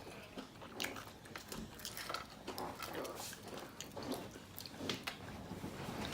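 Close-up eating sounds: fried chicken with honeycomb honey being bitten and chewed, in many short, irregular wet clicks and crunches.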